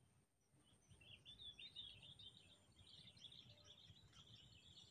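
Faint, continuous chirping of small birds, starting about half a second in, over a low rumble.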